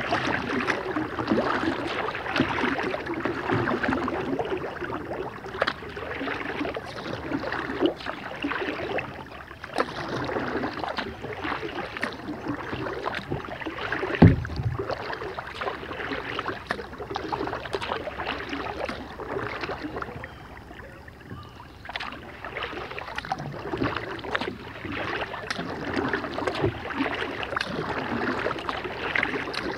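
Kayak paddling on calm river water: the paddle dips and splashes continuously with water dripping off the blades, easing off briefly about two-thirds of the way through. A single sharp thump about halfway through stands out as the loudest sound.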